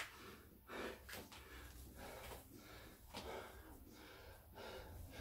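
A man breathing hard and fast, winded from exercise: quick, evenly paced breaths, about one every two-thirds of a second. A short sharp click comes right at the start.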